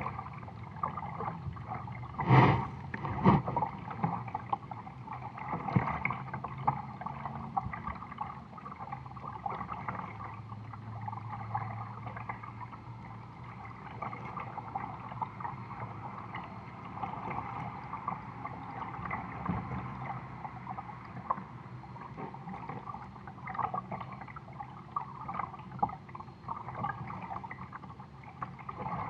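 Water gurgling and lapping against the plastic hull of a moving kayak, with two sharp knocks about two and three seconds in.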